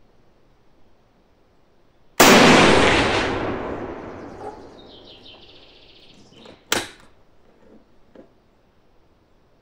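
A single rifle shot from a Yugoslav Mauser M48A bolt-action in 8x57 IS: a sharp crack about two seconds in, trailing off in a long echoing tail over about three seconds. A few seconds later comes a sharp metallic clack and then a lighter click as the bolt is worked.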